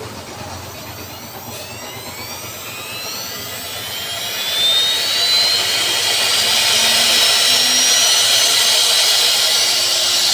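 CNC wood router spindle spinning up: a high whine rising steadily in pitch, growing louder about four to five seconds in, then running on at speed as a steady, loud high whine with hiss.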